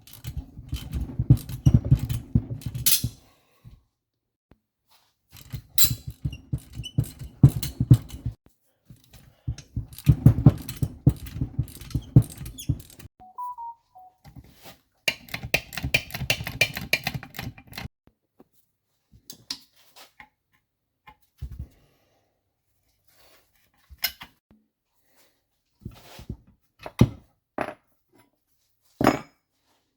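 Impact driver hammering on the bolts of a Tomos moped engine case in four bursts of about three seconds each, then scattered single clicks and knocks of tools and parts. The bolts are seized tight.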